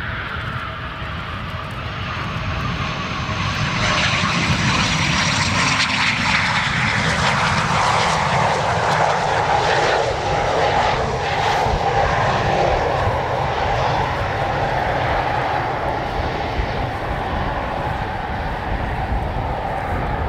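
An aircraft flying past, its engine noise building over the first few seconds, loudest in the middle, then slowly fading.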